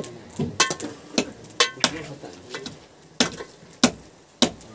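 A long curved knife chopping goat meat and bone on a wooden log block: a series of about seven sharp, irregular chops, the hardest past the middle.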